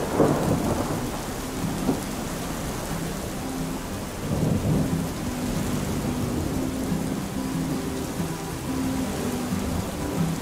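Thunderstorm ambience: a steady hiss of rain with low rumbles of thunder, the loudest just at the start and again about four and a half seconds in. Faint music of short held low notes runs under it from a few seconds in.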